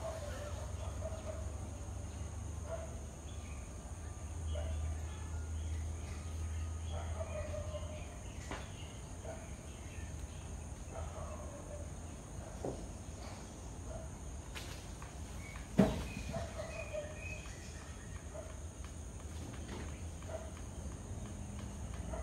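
Outdoor ambient noise: a steady low rumble with faint, short chirps scattered throughout, and a single sharp click about two-thirds of the way through.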